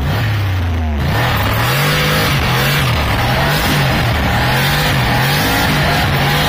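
Turbocharged V8 Fox-body Mustang engine revved hard, its pitch rising and falling over and over, heard from inside the cabin. A loud rushing noise comes in with it about a second in.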